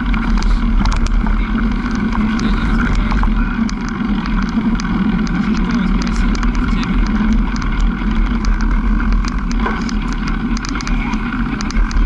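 Continuous riding noise from a bicycle rolling over a bumpy dirt forest track: tyre rumble and wind on the microphone, with frequent small clicks and rattles as it jolts over ruts.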